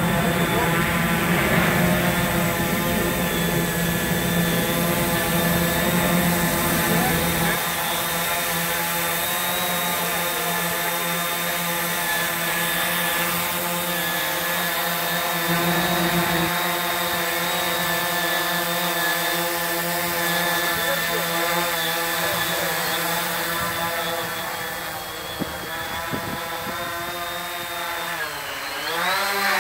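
Hobby King Quanum Spider 700 electric quadcopter hovering, its brushless motors and propellers giving a steady many-toned whine. Near the end the pitch sags and then climbs again as the throttle is eased off and opened back up.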